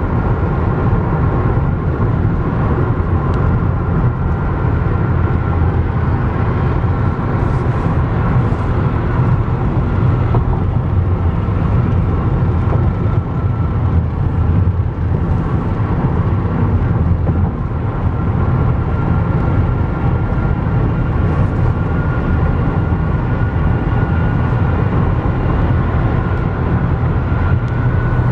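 Steady road noise inside a car cruising at highway speed: a constant low rumble of tyres and engine. A few faint brief hisses come and go.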